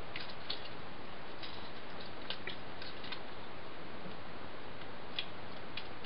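Faint, scattered small clicks of plastic parts being moved and snapped as a Transformers Generations Blitzwing figure is transformed, over a steady hiss.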